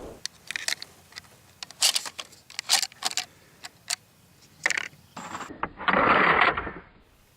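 Sharp metallic clicks and clacks as the K-31 straight-pull rifle is handled between shots, then a loud rush of noise lasting nearly a second about six seconds in.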